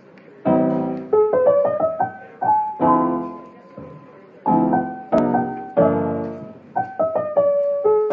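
Background music: a piano playing chords with a melody over them.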